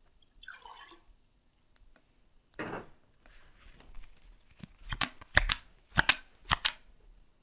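Playing cards being handled and dealt onto a small wooden table: a short rustle about two and a half seconds in, then a quick run of sharp card snaps in the last few seconds.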